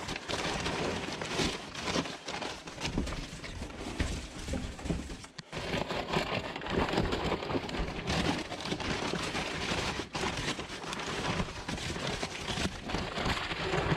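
Crumpled brown kraft packing paper rustling and crinkling as hands dig through it and pull it apart, with a brief lull about halfway through.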